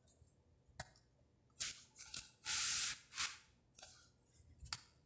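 Handling noises as a smartphone is moved about in the hand: a few light clicks and short rubbing rustles, with a longer hiss about two and a half seconds in.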